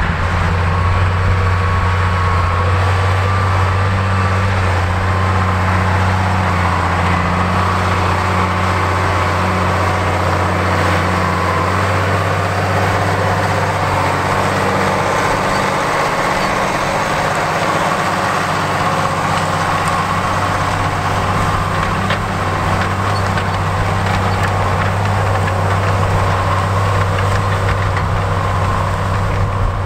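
Case IH 8950 Magnum tractor's 8.3-litre six-cylinder diesel engine running steadily under load while pulling a chisel plow, a deep drone that eases briefly about halfway through.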